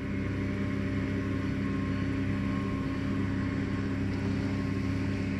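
A motor running steadily with an even, unchanging hum.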